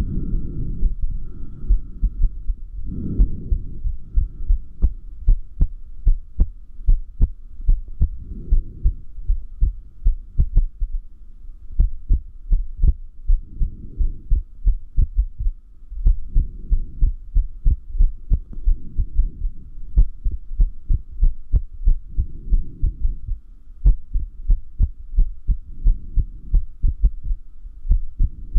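Human heartbeat picked up from the chest: sharp low lub-dub thumps in an uneven rhythm, with irregular beats that the uploader takes for arrhythmia made worse by holding the breath. Soft rushing swells come and go every few seconds under the beats.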